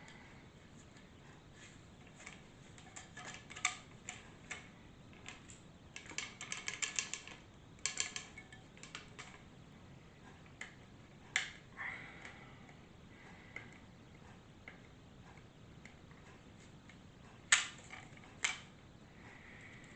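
Hands handling a carbon bicycle fork and picking at the tape stuck on its end: scattered clicks and taps, a crackling run of rapid clicks about six seconds in as the tape and adhesive come away, and a couple of sharp knocks near the end.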